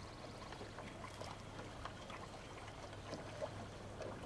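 Faint splashing and trickling of racing canoe paddles dipping into the water in irregular strokes, over a low steady hum.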